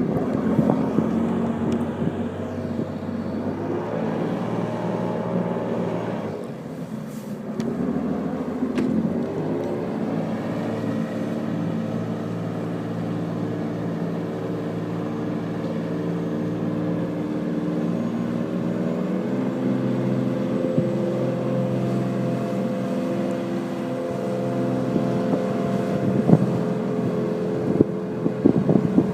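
Diesel engine of a small tugboat running under load, its pitch shifting several times as it works to tow a grounded sailboat off in water that the onlooker thinks is too shallow.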